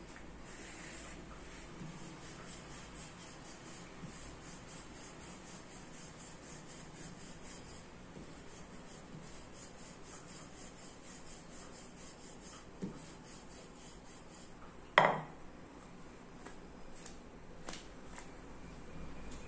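Wooden rolling pin rolling paratha dough on a flour-dusted stone countertop, a soft steady rubbing. A single sharp knock about fifteen seconds in is the loudest sound, with a smaller knock shortly before it.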